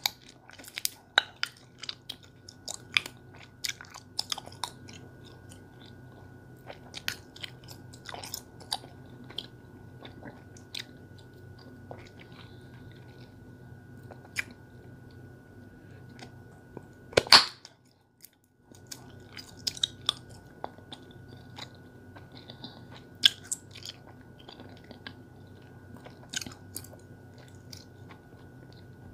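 Bubble gum being chewed with the mouth close to the microphone: irregular wet smacks and clicks, with one much louder snap about seventeen seconds in.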